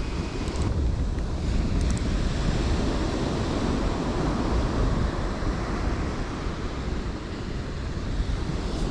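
Ocean surf breaking and washing up the beach, with wind buffeting the microphone as a steady low rumble.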